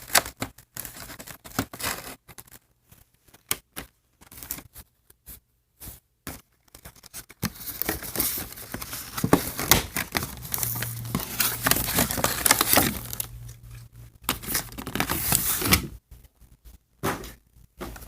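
Doll-box packaging being torn and crinkled open by hand, in irregular rustles and snaps that become nearly continuous for the middle stretch.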